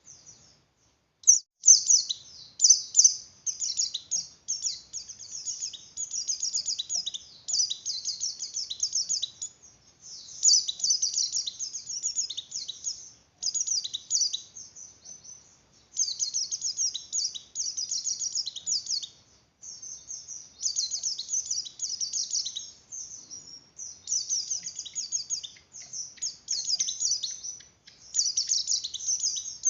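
White-eye (pleci) in breeding condition singing a fast, high twittering chatter in phrases of a second or more, broken by short pauses. It is the excited breeding-season song, used as a lure to bring other white-eyes into breeding condition.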